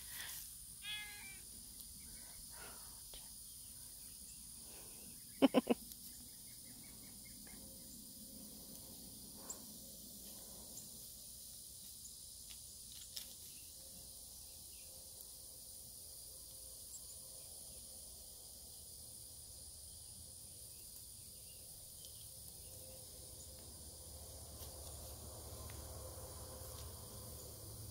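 Kittens meowing a few times, high and short. The loudest are two quick meows about five and a half seconds in, over quiet outdoor background.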